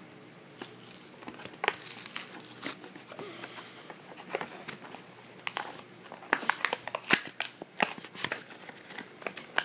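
Hot Wheels blister pack torn open by hand: the plastic blister crinkles and the cardboard card tears, in irregular crackles and snaps that come thickest in the last few seconds.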